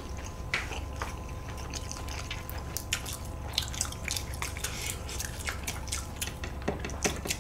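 Close-miked wet chewing and scattered small mouth clicks of someone eating jjajangmyeon (black-bean-sauce noodles).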